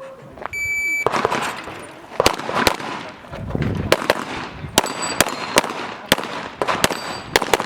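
An electronic shot-timer beep about half a second in, then a string of pistol shots fired at an uneven pace, in quick pairs and short pauses, as in a practical shooting course of fire. Brief ringing tones sound among the later shots.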